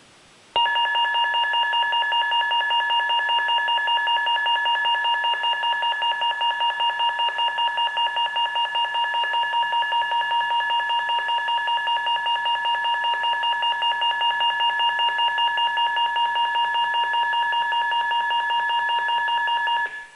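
Electronic fire-alarm sounder going off: a continuous high electronic tone with a rapid flutter, starting suddenly about half a second in and cutting off just before the end.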